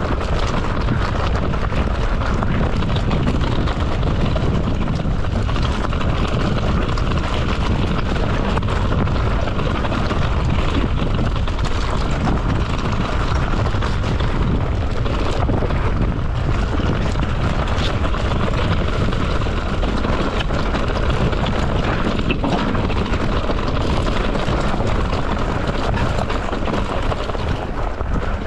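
Steady rushing rumble of a mountain bike descending a trail at speed: wind buffeting a body-mounted camera's microphone over tyre roar and the bike's rattle, with no let-up.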